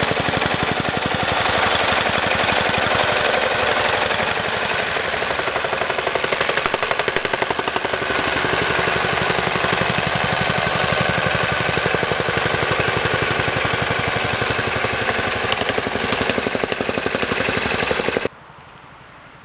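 Vibrating plate compactor running, a fast steady pounding as it packs soil around a concrete foundation. It cuts off abruptly near the end.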